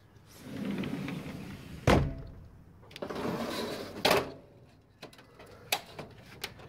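Two heavy thuds about two seconds apart, each after a stretch of rustling and handling, with a few light clicks near the end.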